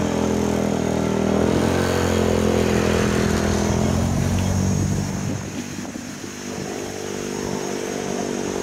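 An engine running steadily, its pitch rising a little about a second and a half in and easing back down around five seconds.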